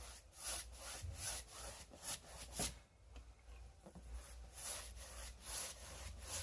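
Paintbrush stroking liquid sealer onto painted upholstery fabric: faint, scratchy brush strokes at about two a second, with a brief pause near the middle.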